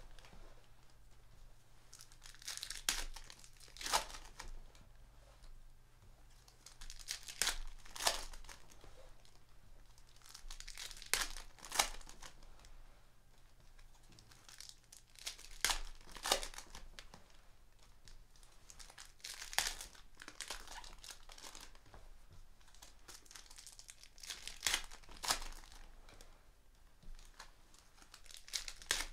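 Foil wrappers of Panini Prizm basketball card packs being torn open and crinkled, in short crackly spells about every four seconds.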